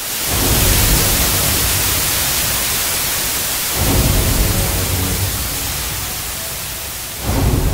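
Logo sting sound effects: a loud static-like hiss that sets in suddenly and slowly fades, with deep low hits at the start, about four seconds in, and near the end.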